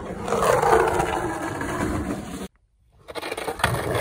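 Rough rustling handling noise, cut off abruptly to silence about two and a half seconds in; then skateboard wheels rolling on the concrete of an empty pool bowl, with a sharp click near the end.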